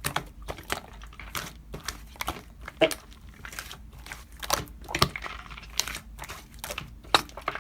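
Slime being pressed and squished by hand, with irregular sticky clicks, pops and crackles.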